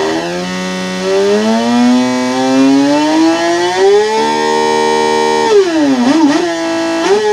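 Electric-bike sound booster playing a synthetic big-motorcycle engine note through its speaker. The pitch climbs steadily for about three seconds as if revving, holds, then dips and wobbles briefly near the end before levelling off.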